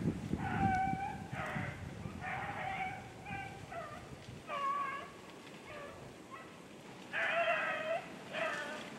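A pack of beagles baying on a rabbit's track: about a dozen drawn-out, pitched bays, one after another and some overlapping, through the whole stretch.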